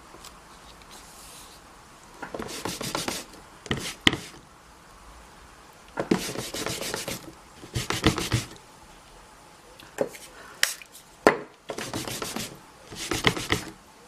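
Short bursts of rubbing and scraping with a few sharp clicks, from a clear acrylic stamp block and card being handled, pressed and set down on a craft mat while stamping.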